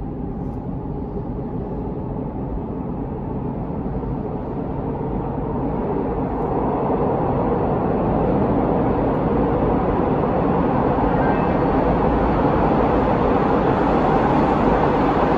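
TTC Line 2 subway train, a T1 car set, approaching through the tunnel. Its steady rumble grows gradually louder.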